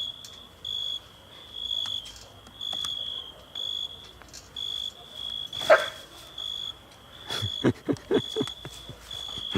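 A cricket chirping in steady high pulses about once a second, with a dog giving one sharp yelp about halfway through and then a quick run of short barks.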